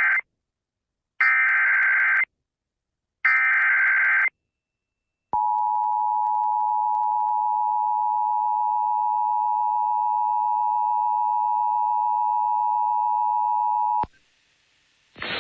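Emergency Alert System broadcast: the tail of one and then two more one-second SAME digital header bursts, about a second apart, followed by the EAS two-tone attention signal (853 and 960 Hz) held steady for about nine seconds and cutting off sharply. A band of hiss starts just before the end.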